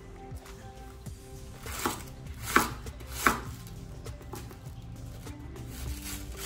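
Chef's knife cutting cabbage on a wooden cutting board: three sharp knocks of the blade on the board about two to three seconds in, then lighter, quicker cuts as the cabbage is sliced into shreds.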